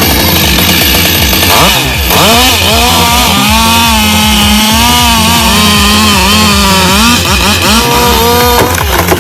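Two-stroke chainsaw running at high revs and cutting; its engine note wavers up and down under load. It dips briefly a couple of seconds in and stops shortly before the end.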